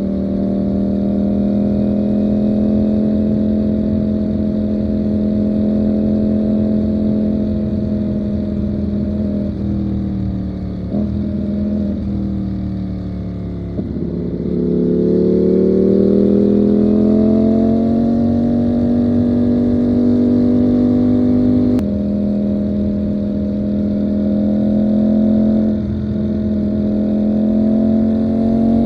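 Ducati Panigale V4's V4 engine running as the motorcycle rides along at a steady pace. About ten seconds in, the pitch falls through a few short breaks as the bike slows and shifts down, then rises as it accelerates and settles back to a steady note, with one brief dip near the end.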